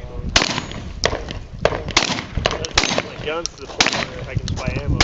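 A string of gunshots at an uneven pace from a shouldered long gun during a 3-gun competition stage.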